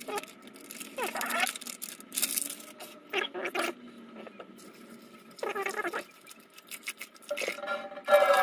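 A few short separate sounds that slide down in pitch, then, about eight seconds in, tap water starts running into a stainless steel sink and a bowl.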